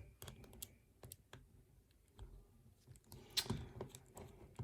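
Faint, scattered light clicks and taps of small metal lock parts being handled, with a short cluster of louder clicks about three and a half seconds in.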